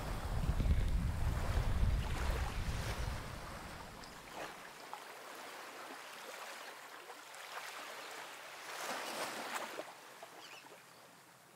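Wind rumbling on the microphone over small waves lapping at the rocky shore, dropping away about four seconds in to a faint, even hiss.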